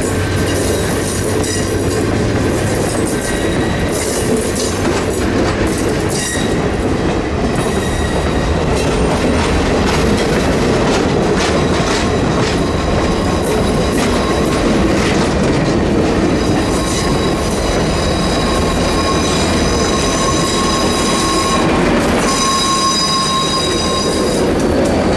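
Railroad passenger coaches rolling past close by, their steel wheels clattering over the rail joints. From about two-thirds of the way in, thin high wheel squeal comes in as the wheels round a curve. The trailing diesel locomotive comes by at the very end.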